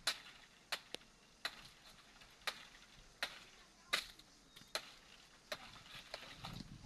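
A blade chopping into a banana tree trunk: sharp, separate strikes at an uneven pace of roughly one a second. A low rumbling noise rises near the end.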